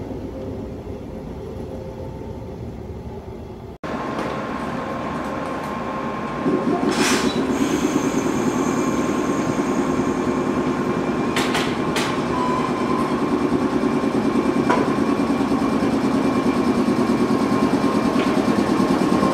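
JR Kyushu 415 series AC/DC electric train running, a steady rumble of wheels and running gear with a few sharp clicks. A cut about four seconds in leads to a second recording, where the train noise gets markedly louder about six seconds in.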